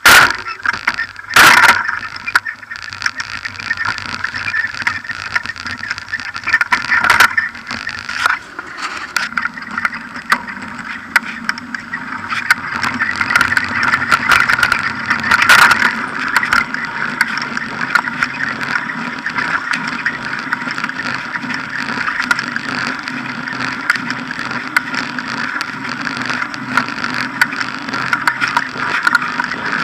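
Mountain bike with knobby tyres being ridden over grass, paving and tarmac, with continuous rolling and rattling noise. There are hard knocks as it bumps over rough ground about a second in and a few more in the first half, then a steady tyre hum builds once it is on the road.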